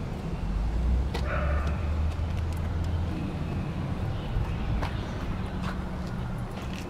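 1966 Chevrolet Chevelle SS's 396 big-block V8 idling through its exhaust as a steady low rumble, a little louder from about half a second to three seconds in.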